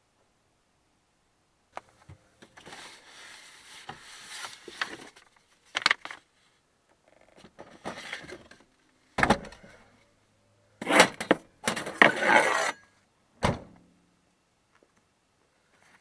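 Gear being pulled out of the back of a van and set down: rustling and scraping of objects, with a few sharp knocks of wood and hard plastic and a louder clatter about two-thirds of the way through.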